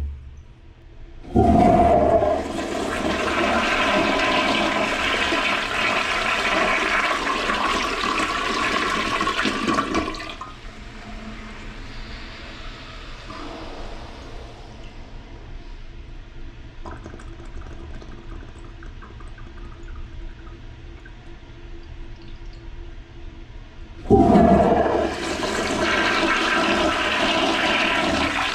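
A toilet flushed twice. The first flush starts suddenly with a loud rush of water about a second in and ends abruptly after about nine seconds. Quieter running water follows, then the second flush starts with the same sudden rush near the end.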